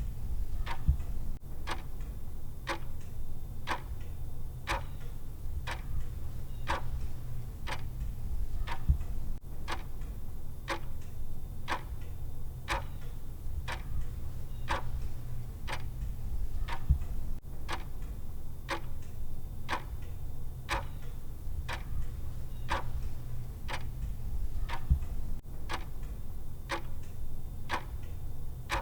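Clock-style ticking of a countdown timer: steady, evenly spaced ticks, with a low steady hum beneath.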